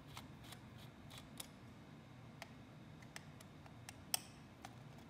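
Small Phillips screwdriver working tiny screws out of a laptop's internal metal panel: faint, irregular clicks of the bit and screws, with one sharper click about four seconds in.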